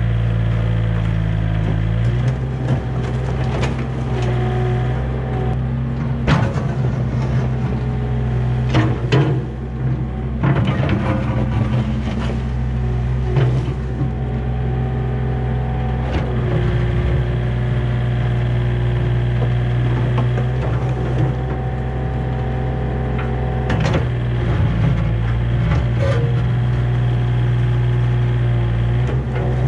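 Yanmar B37 mini excavator's diesel engine running steadily under hydraulic load, its pitch shifting as the boom and bucket work. Several sharp knocks and scrapes sound as the grading bucket digs through leaves, dirt and rock.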